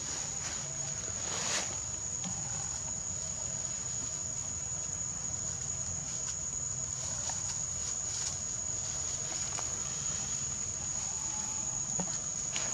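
Insects buzzing in the forest with one unbroken, steady high-pitched tone. A brief rustle comes about a second and a half in.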